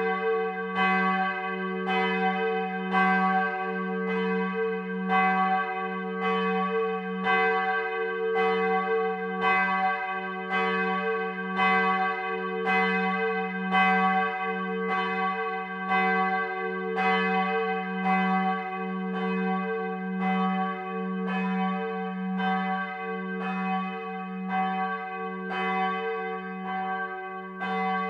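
A swung church bell from the seven-bell peal of Freudenstadt's Protestant town church, ringing with even strokes about three every two seconds. Its low hum rings on between strokes.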